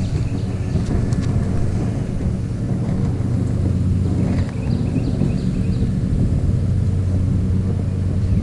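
Steady low rumble of wind buffeting the microphone outdoors by a trout stream, with the stream's rushing water under it.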